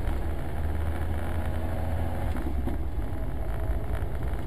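Steady low rumble of a car on the road: engine and road noise.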